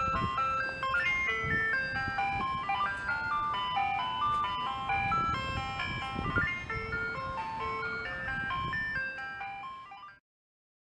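Ice cream truck chime tune: a quick, bright, music-box-like melody playing over low rumbling street or engine noise. It fades out near the end and cuts to silence.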